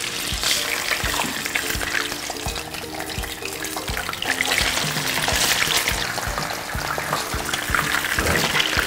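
Whole catfish sizzling and crackling in hot oil in a frying pan as they are laid in, the sizzle growing louder about halfway through as more fish go into the oil. Background music with a steady beat plays underneath.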